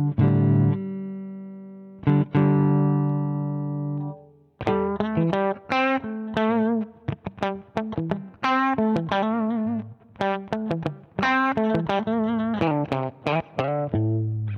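Electric guitar played through a Zander Circuitry Surplus overdrive pedal, giving a driven, crunchy tone. Two chords are struck and left to ring out, then from about four and a half seconds in comes a quick run of picked single notes and short chord stabs, some held with vibrato.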